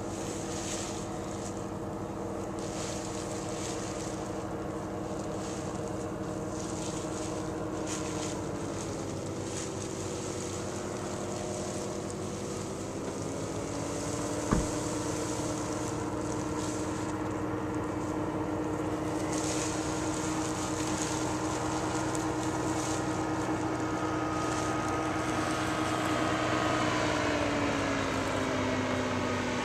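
Powered parachute's engine and propeller droning in flight, its pitch slowly sagging and recovering a few times, with a sharp tick about halfway through.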